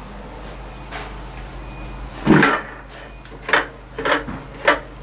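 Young crow tapping its beak against a metal pipe: a series of irregular sharp taps, the loudest about two seconds in.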